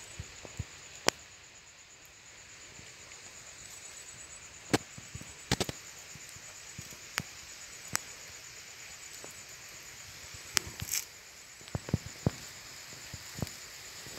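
Scattered sharp clicks and taps from hands working a cord around a tree branch, about ten of them with a short cluster about halfway through. A steady high insect trill runs underneath.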